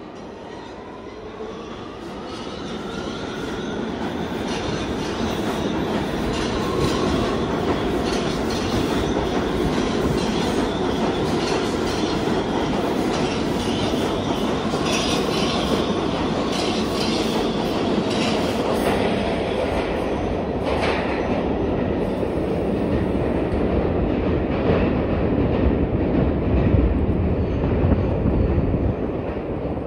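R211A subway train pulling out of the station. A rising whine from the traction motors builds over the first few seconds as it accelerates. It then gives way to a steady rumble and clickety-clack of wheels over rail joints as the cars run past.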